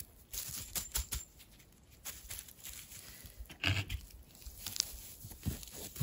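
Light rustling, tearing and scattered clicks of leaf litter and soil as a wild mushroom stuck fast in the ground is worked loose by hand, with one brief louder rustle a little past the middle.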